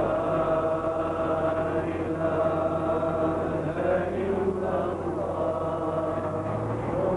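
A male voice chanting Quran recitation in long, drawn-out melodic notes, over a steady low hum.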